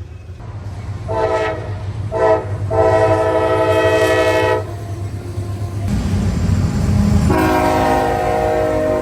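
Train air horn sounding a chord of several notes: two short blasts about a second in, then a long blast of about two seconds, and another long blast starting near the end, over a steady low rumble.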